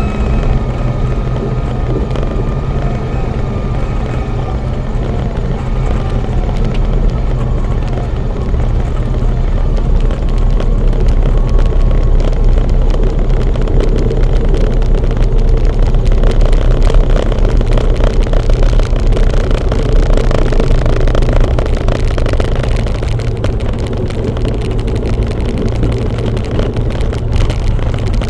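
Cessna 172's piston engine and propeller running steadily, heard from inside the cabin, a little louder in the middle stretch, with a thin high tone fading out over the first dozen seconds or so.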